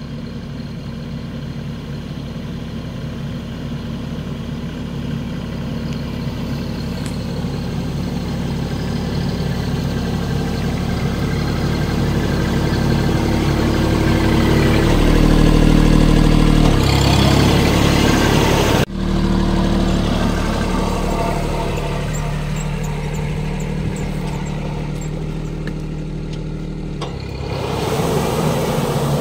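Tractor diesel engine running steadily while driving the fan of a Shaktiman Vineyard-600 air-blast sprayer, which is spraying mist. It grows louder as the rig approaches, drops out for an instant about two thirds through, and steps up again near the end.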